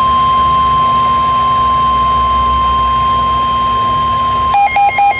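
NOAA Weather Radio's 1050 Hz warning alarm tone: one loud, steady tone that cuts off about four and a half seconds in. Fast electronic beeping, about four beeps a second, follows it.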